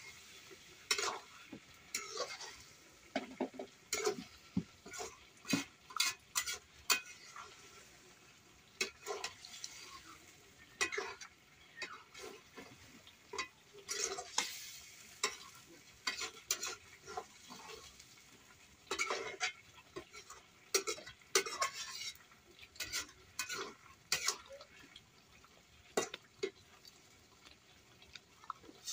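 Metal spatula scraping and knocking irregularly against a metal kadai as meat is stirred and dry-fried in its spices over a wood fire, with light sizzling between the strokes: the kosha stage, before water is added.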